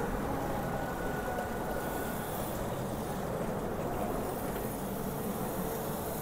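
Steady rush of wind and road noise while riding an electric bike, with a faint thin whine in the first couple of seconds.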